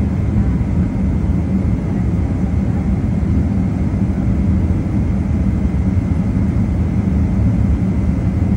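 Inside the cabin of a Boeing 767-300 taxiing: the jet engines' steady low rumble and hum, with a faint steady high whine above it.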